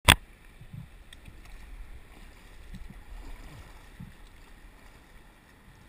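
One sharp knock at the start as a hand handles the camera on an inflatable kayak, then moving river water splashing around the kayak with wind rumbling on the microphone.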